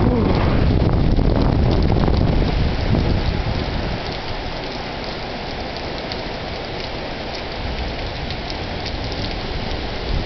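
Heavy rain pouring down, a dense steady hiss full of small drop hits. A low rumble underlies the first few seconds and dies away about four seconds in.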